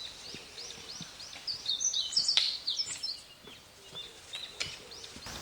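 Songbirds singing in the woods: a quick run of short, high chirps repeated about four times a second, then more varied twittering with a few faint clicks.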